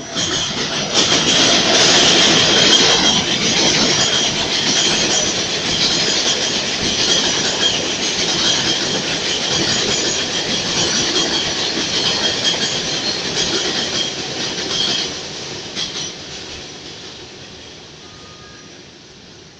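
An R188 (converted R142A) subway train runs past at speed on a steel elevated structure without stopping: heavy wheel-on-rail rumble with a steady high tone running through it. It swells in the first second, stays loud, then fades away over the last few seconds as the train pulls off.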